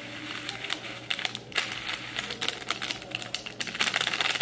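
Small candy sprinkles rattling as they are shaken out: a quick run of tiny clicks, with louder flurries about a second and a half in and again near the end.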